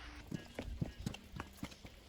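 A quick, irregular run of light knocks and taps, about six or seven in two seconds.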